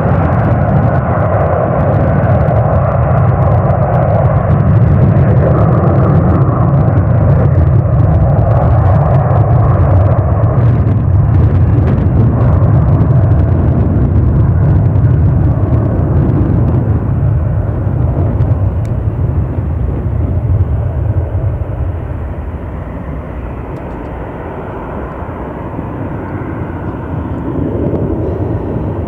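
Boeing 757-200 jet engines at takeoff thrust: a loud, steady low roar as the airliner rolls down the runway and lifts off, easing off after about twenty seconds as it climbs away.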